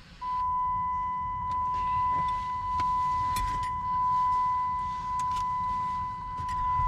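A steady, high electronic beep tone held unbroken for about seven seconds, with faint clicks and rattles under it.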